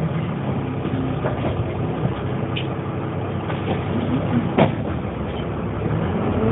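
1998 Dennis Dart single-deck bus running, with a steady noisy rumble, scattered rattles, and one sharp knock about four and a half seconds in.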